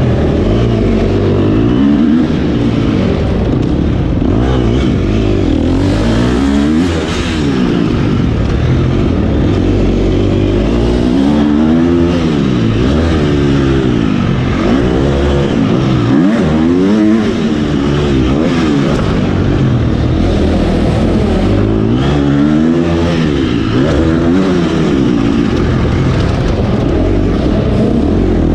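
Husqvarna FC250's 250 cc single-cylinder four-stroke engine, ridden on a dirt motocross track, revving up and down over and over as the rider accelerates, shifts and backs off.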